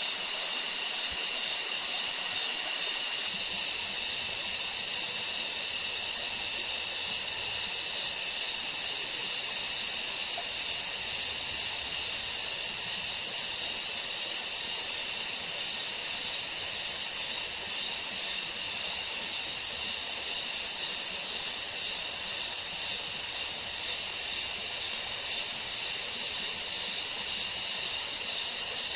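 A steady high-pitched hiss that begins to pulse at about one and a half beats a second a little past the middle.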